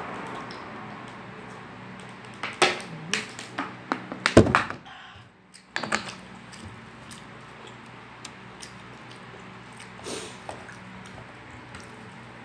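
Drinking and handling a plastic water bottle: a run of sharp clicks and crackles, then a single loud thud about four seconds in, the loudest sound. After that come only a few soft, scattered clicks of eating by hand from a plate.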